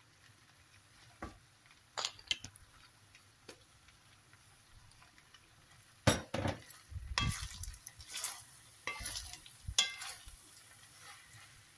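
Wooden spatula stirring fusilli pasta and courgette slices in a large nonstick frying pan: a few scattered clicks, then a dense run of scrapes and knocks against the pan from about six seconds in.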